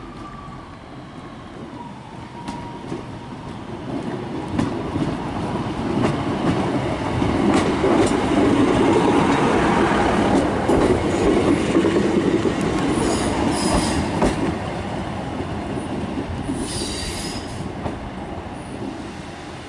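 Diesel multiple unit train running past along the platform, growing louder to a peak about halfway through, then fading. Wheel clicks over the rail joints run through it, with brief high squeals in the later part.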